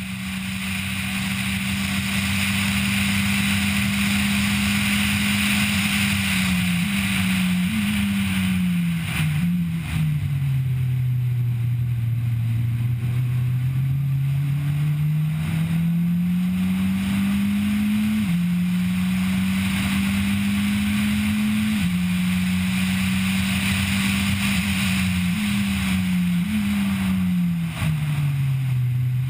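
Race car engine heard onboard at speed on a circuit, with road and wind noise. The pitch steps through several quick downshifts under braking, climbs steadily out of a corner, drops at two upshifts, and steps down through more downshifts near the end.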